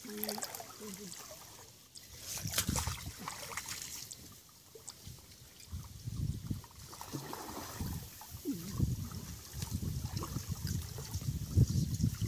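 Water sloshing and splashing in uneven surges as a person wades waist-deep and works a hand net through shallow, weedy water.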